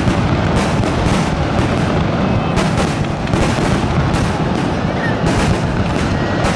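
A continuous barrage of fireworks: colored senrin (thousand-ring) shells bursting in quick overlapping reports, with a steady low rumble beneath the crackle.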